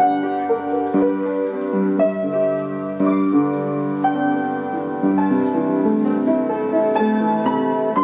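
Background piano music, with single notes and chords struck and left to ring.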